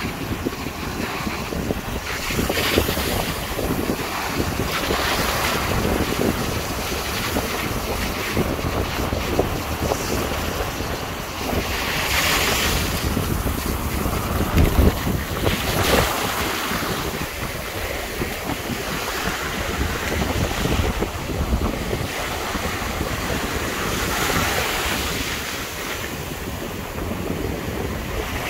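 Ocean surf washing up the beach, swelling and easing every few seconds, with wind noise rumbling on the microphone.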